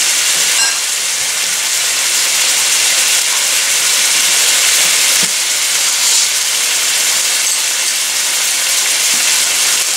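Soy sauce and vinegar sizzling steadily in hot oil in a nonstick frying pan.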